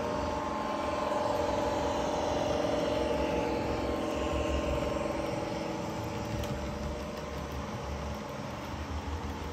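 Model railway locomotive running on the layout with a steady engine-like hum and whine. It grows louder a second or two in, then slowly fades as it moves away.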